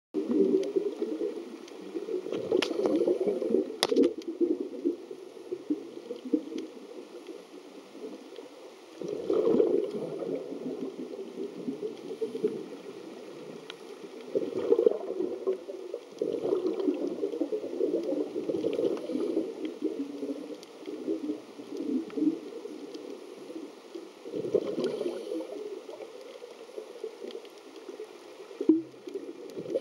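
Scuba diver's breathing heard underwater: bursts of exhaled bubbles from the regulator gurgling about every five seconds, with quieter stretches between. A sharp click about four seconds in.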